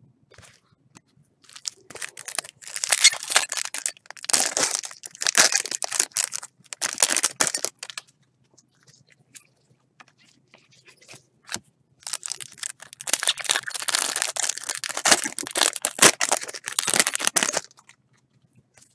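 Foil trading-card pack wrappers being torn open and crinkled, in two bouts of dense crackling, the second starting about twelve seconds in.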